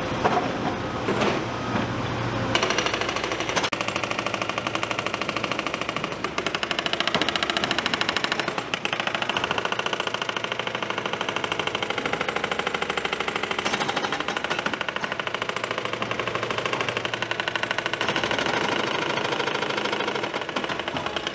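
Excavator-mounted hydraulic breaker hammering rock, a rapid, steady run of blows many times a second. After about two and a half seconds the blows settle into a continuous run.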